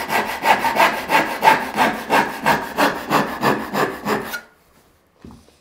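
Disston back saw, not yet sharpened, crosscutting a 3/4-inch fir board with heavy strokes, about three a second, stopping about four seconds in. A faint knock follows near the end.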